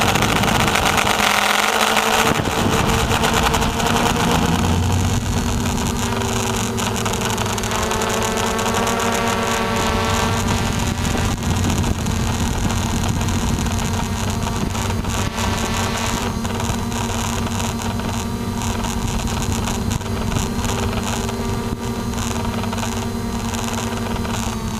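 RC Logger NovaX 350 quadcopter's electric motors and propellers humming steadily in flight, heard up close through the camera mounted on the drone, with the pitch shifting briefly about eight to ten seconds in as the motors adjust.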